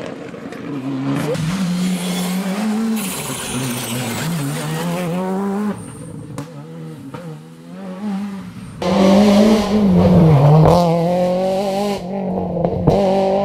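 Rally car engines at full race speed on a tarmac stage, revving up and down through gear changes as one car after another goes by. The sound changes abruptly about 6 and 9 seconds in, and is loudest from about 9 seconds on, where the engine drops in pitch on a downshift and climbs again.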